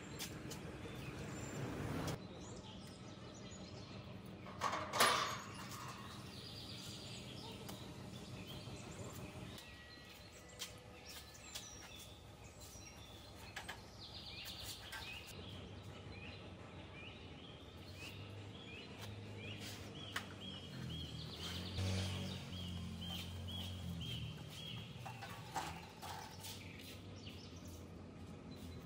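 Outdoor village ambience with a bird chirping repeatedly in short, evenly spaced calls, scattered small clicks and a low rumble in the background. A brief loud noise comes about five seconds in.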